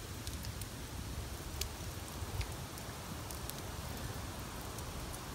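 Small wood campfire crackling, with scattered sharp pops over a steady low rumble.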